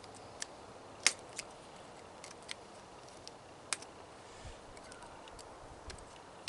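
Irregular sharp metallic clicks and snips of hand tools working on small metal parts of a dehumidifier, the loudest about a second in and again near the middle.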